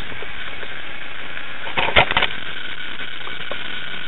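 Steady hiss from a small camera's microphone, with a quick cluster of knocks and clatter about two seconds in as the helicopter-mounted camera is handled and set down on concrete.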